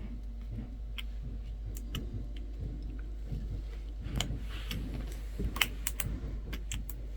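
Light clicks and taps of small parts being handled and seated inside an open MacBook Air, a few sharper clicks in the second half, over a low steady hum.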